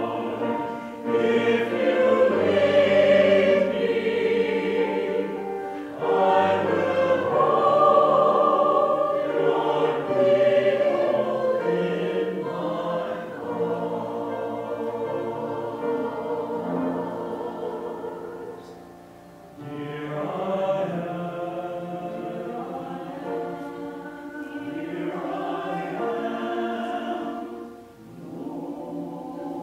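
Small mixed choir of men and women singing together. The sound dips briefly between phrases about two-thirds of the way through and again near the end.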